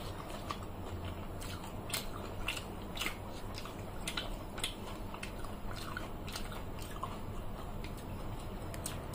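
Close-up eating sounds of two people chewing fried fish and watered rice eaten by hand, with irregular sharp wet clicks and smacks about once or twice a second.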